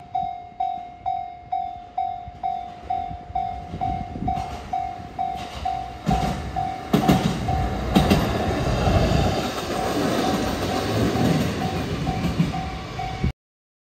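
Railway level-crossing alarm ringing, one repeated tone struck about twice a second. About six seconds in, a train begins passing, its rumble and rattle on the rails growing loud under the alarm, until the sound cuts off abruptly near the end.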